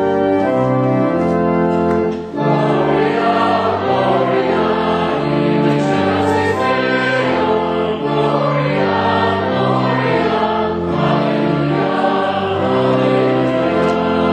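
Church organ playing a hymn, with the congregation singing along from about two seconds in.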